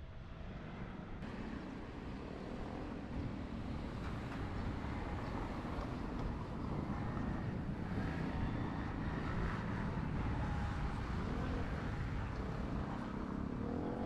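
Steady outdoor road traffic noise.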